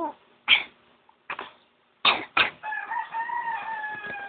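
A baby coughing in several short, harsh bursts, then a long drawn-out call with a slowly falling pitch lasting nearly two seconds.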